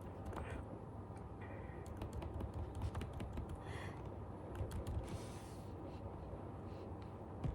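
Faint, irregular light clicks and taps, bunched together about two to three and a half seconds in, over a steady low hum.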